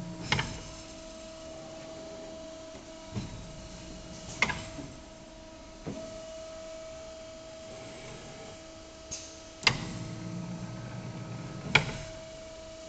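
Multi-tube evaporator tube bending machine running through its cycle: a steady machine hum broken by sharp clacks every couple of seconds as the bending head and clamps move, with a low buzz of the drive after the knock near the end.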